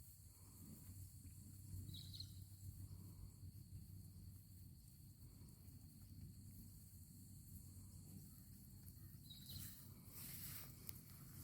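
Near silence: faint outdoor background with a low rumble and a thin steady high tone, two brief chirps, and some rustling near the end.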